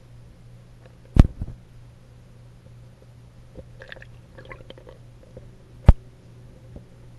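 Two sharp knocks picked up underwater, one about a second in and one near six seconds, over a steady low hum, with faint crackling between them.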